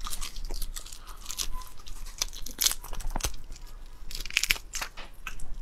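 Raw black tiger prawn being torn apart and bitten by hand at the mouth: shell cracking and tearing in irregular crackles, with close-up chewing and biting clicks.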